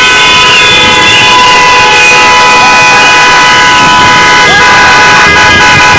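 Several vehicle horns sounding at once in long, overlapping blasts, loud and steady, with a few short dips in pitch near the end.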